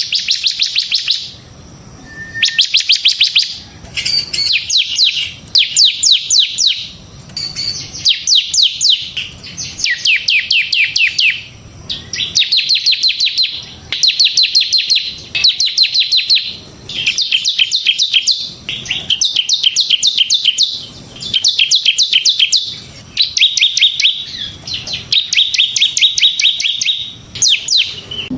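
Bar-winged prinia (ciblek) singing in the rapid drilling style that keepers call 'ngebren'. It gives phrase after phrase of fast, high, trilled notes, each phrase about a second long with short pauses between.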